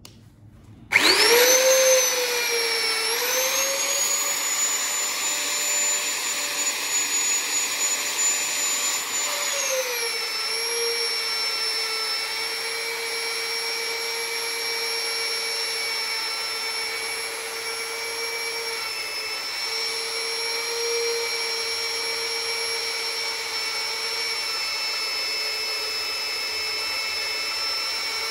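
Electric power tool motor switching on and spinning up, then running with a steady high whine. About nine seconds in its pitch drops a little and stays lower, as when the tool takes load on the steel.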